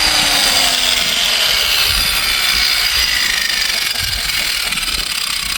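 Power grinder working the old steel of an antique concrete mixer to strip rust and paint: a harsh grinding noise with a high motor whine that slowly drops in pitch.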